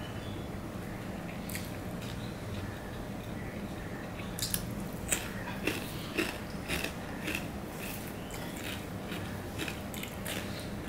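Close-up eating sounds of a person eating rice and fried egg and onion by hand: chewing, with a run of sharp clicks and smacks from about four to seven seconds in, over a steady low hum.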